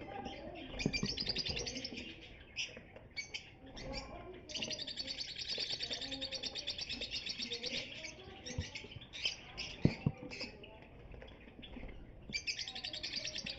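Lovebirds chattering: fast, high, rapidly repeated chirps in long runs, with a few sharp knocks near the middle.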